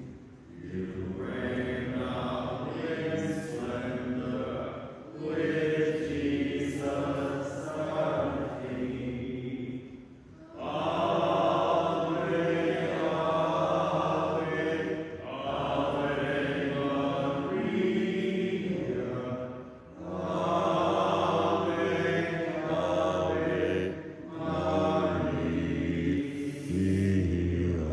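A hymn sung in slow phrases of long-held notes, each phrase about four to five seconds long, with short breaths between them.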